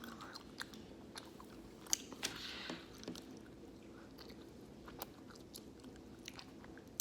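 Faint chewing of a sour candy belt: scattered soft mouth clicks and smacks over a low steady hum.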